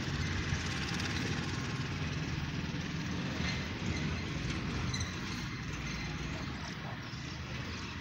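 Steady outdoor background noise: an even hiss over a low rumble, with no clear bird calls.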